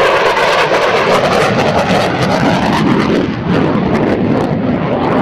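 Fighter jet making a low, high-speed pass: a loud, steady jet roar with crackling.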